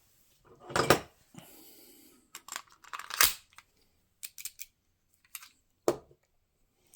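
1911-style air pistols being handled: an irregular series of metal clicks and knocks, the loudest about a second in and again about three seconds in, with a short scraping slide between them.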